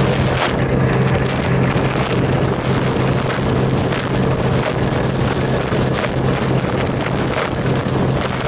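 Volga hydrofoil motorboat running steadily at speed, foilborne: a constant engine drone over rushing water from the foil strut, with wind buffeting the microphone.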